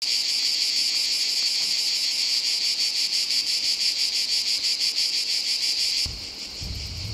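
Chorus of cicadas, a loud, dense, rapidly pulsing high buzz. About six seconds in it drops suddenly to a fainter chorus with a low rumble of wind.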